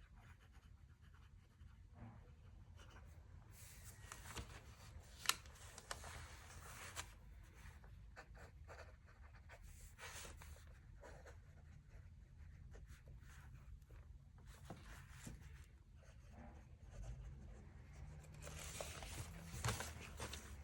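Faint scratching of writing on paper, in intermittent stretches, with a few light clicks.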